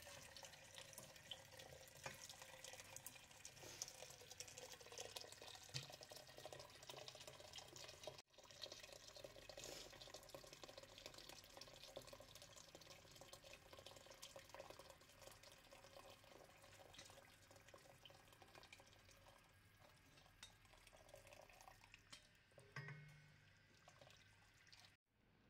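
Faint stream of tap water running into a stainless steel pot of tomato-paste sauce, with a wooden spoon stirring, to thin the paste into a sauce.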